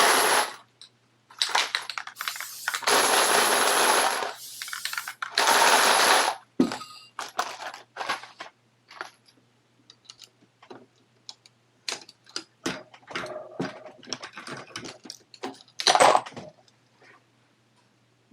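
Hornady Lock-N-Load AP progressive reloading press being cycled: metallic clicks, clinks and clatter of brass cases and press parts. There are two longer rattling stretches in the first six seconds and a loud burst about 16 s in, with scattered sharp clicks between.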